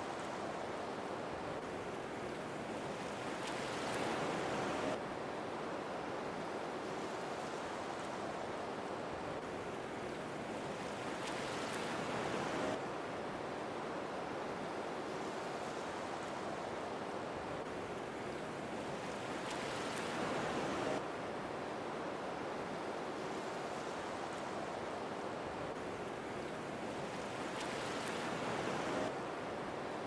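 Waterfall rushing steadily, with a louder swell about every eight seconds that cuts off abruptly.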